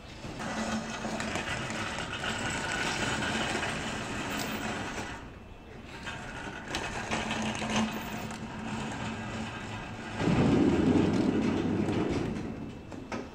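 Manual pallet jack carrying a loaded crate, its wheels rolling and rattling over the truck's metal tail-lift plate and concrete. It grows to a louder, deeper rumble from about ten seconds in until shortly before the end.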